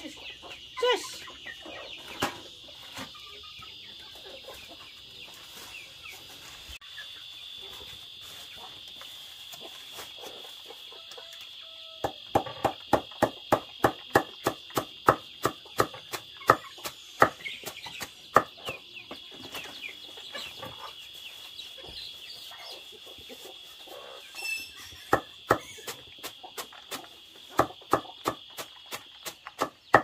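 Cleaver chopping leafy greens on a wooden board: a run of sharp, even knocks, about three a second, starts about twelve seconds in, and sparser chops come near the end. A steady high insect buzz runs underneath, with chickens clucking, most clearly in the first seconds.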